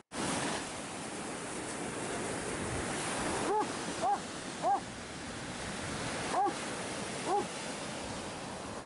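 Surf washing onto the beach, with wind on the microphone. A dog gives short barks over it: three about half a second apart a little over a third of the way in, then two more later.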